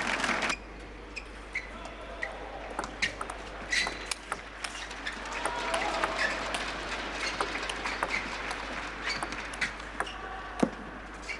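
Table tennis ball clicking sharply and irregularly against the bats and the table in rallies, roughly every half second, over faint voices in a large hall. Louder voices and applause cut off about half a second in.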